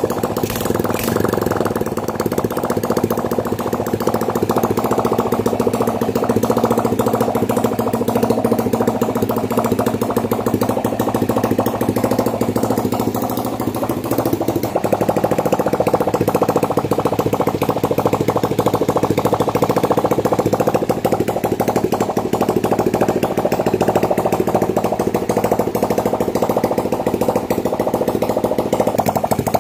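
Honda Bravo 100's small single-cylinder four-stroke engine running steadily with a rapid, even putter, a little louder from about halfway through.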